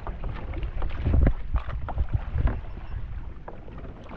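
Wind buffeting the microphone in gusts, with water splashing and slapping around a sit-on-top kayak hull as a hooked tope is brought alongside. The gusts are loudest about a second in.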